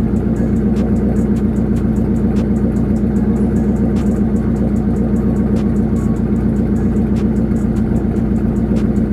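V8 engine exhaust running steadily at idle through a 3-inch X-pipe, with an even, unbroken rumble.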